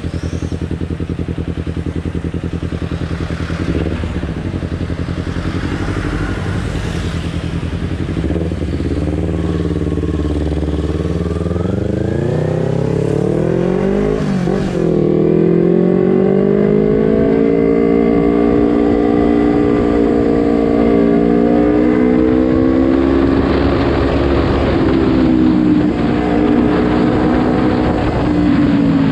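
Kawasaki Ninja 250 FI parallel-twin engine running steadily at low revs, then rising in pitch as it is revved and pulls away. After a cut it is heard riding, the engine note rising and falling as the throttle opens and closes.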